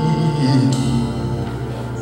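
Live gospel worship music with steady, sustained held notes between sung phrases.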